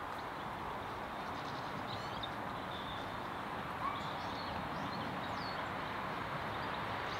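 Small birds chirping, with short high calls scattered throughout, over a steady background rumble of outdoor ambience.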